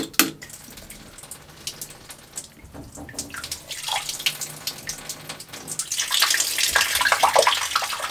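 Water dribbling and splashing out of a boat engine's raw-water impeller pump as its cover plate is undone and taken off. It is heaviest over the last two seconds, and a couple of sharp metal clicks from the spanner come right at the start.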